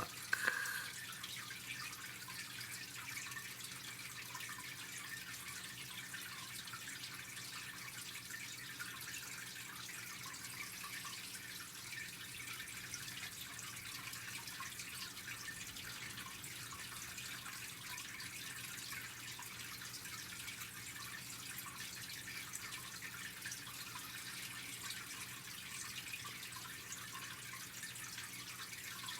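Steady faint background hiss with a fine crackle and a low hum underneath, with no distinct event.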